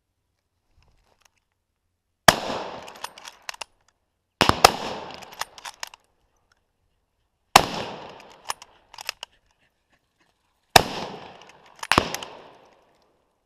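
Four hunting-rifle shots, loud and close at the shooter's position, the first about two seconds in and the rest two to three seconds apart. Each sharp report is followed by an echo that rolls away over a second or two.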